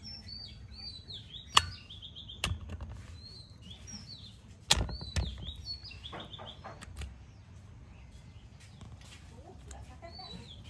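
A few sharp knocks and clicks on metal as raw pork slices are lifted from an aluminium colander and laid into an aluminium bowl, the loudest about a second and a half in and near the middle. Small birds keep chirping in the background.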